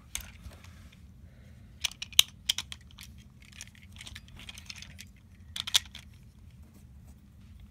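A Beyblade top being handled, giving small sharp clicks: a quick cluster about two seconds in and another shorter cluster near the end.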